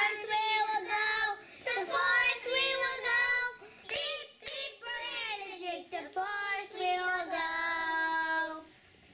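Young children singing a short unaccompanied song in phrases, ending on a long held note shortly before the end.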